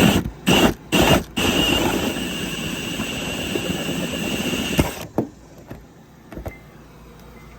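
Cordless drill boring into the trailer wall: a few short trigger pulls, then a steady run with a high motor whine that stops about five seconds in.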